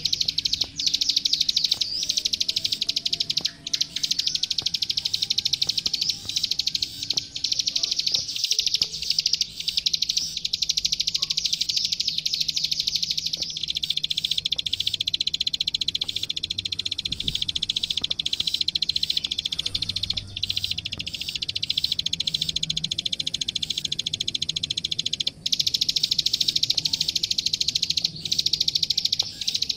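Klik-klik (ciblek sawah) bird singing a long, unbroken high-pitched song of rapid clicking notes, with only a few brief breaks.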